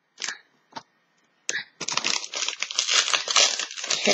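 Foil wrapper of a Pokémon card booster pack crinkling as it is handled and opened: a few short rustles, a brief pause, then steady dense crinkling from about a second and a half in.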